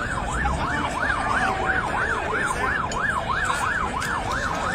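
Ambulance siren in a fast yelp, its pitch sweeping up and down about three times a second, steady and unbroken, over the noise of the crowd and traffic.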